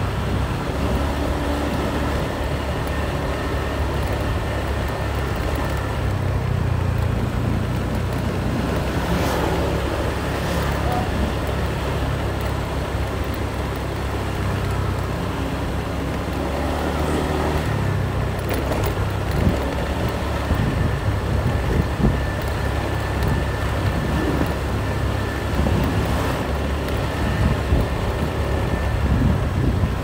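Motor scooter engine running steadily as it rides along a paved street, its note shifting slightly up and down, with road and wind noise.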